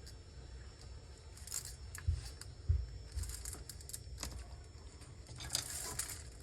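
Small tools handled and scraped against a circuit board: scattered light clicks and short scratchy bursts, with two dull bumps about two to three seconds in.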